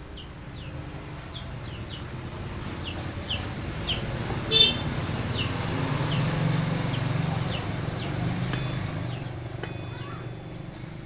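Repeated short falling bird chirps over the low hum of a motor vehicle that swells and fades through the middle, with one short loud squeal just under halfway through.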